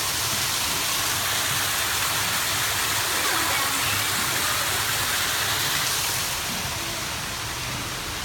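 Waterfall pouring steadily into a pool: a continuous, even rush of splashing water.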